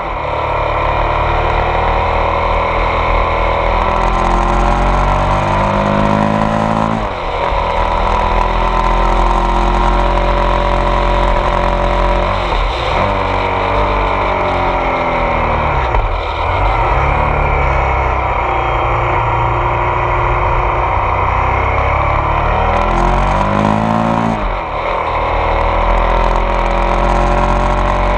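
Ducati Multistrada 1200 S DVT's Testastretta V-twin engine pulling the bike uphill. The revs rise and fall, with four short dips in pitch where the throttle closes or a gear changes.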